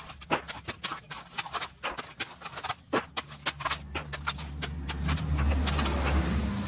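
Steel bar striking and breaking up concrete: a rapid run of sharp knocks, several a second. A low rumble builds in the second half and is loudest near the end.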